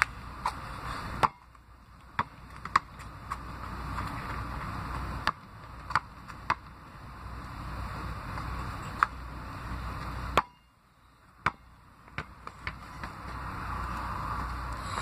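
A basketball bouncing on asphalt now and then, about a dozen sharp, irregularly spaced bounces over a steady outdoor hiss, which cuts out briefly twice.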